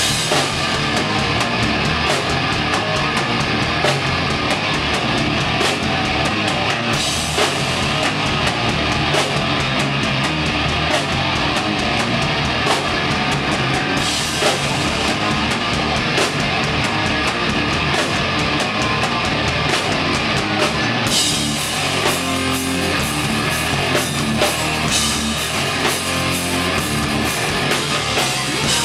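Rock band playing live and loud: electric guitar over a pounding drum kit in a heavy rock song. A new section of the song starts about two-thirds of the way through.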